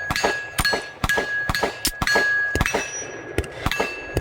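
Rapid gunfire, about two shots a second, each shot followed by the metallic ring of a struck steel target.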